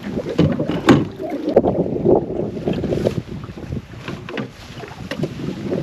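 Wind buffeting the microphone on a small open boat, with a few sharp clicks and knocks from fishing gear being handled.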